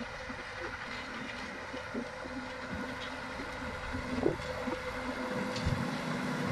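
Tractor engine running steadily at a distance, a low even hum, with a low uneven rumble of wind on the microphone and one short knock a little past four seconds in.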